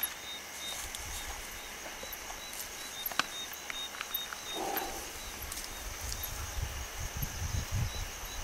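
Spotted hyena feeding on a carcass, with low rumbling growls that get stronger in the last couple of seconds and a short grunt about halfway through. Insects chirp steadily in the background.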